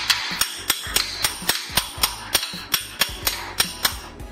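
Rapid, even metal taps with a short ring, about four a second, from the rear axle being knocked out of the motorcycle's wheel hub.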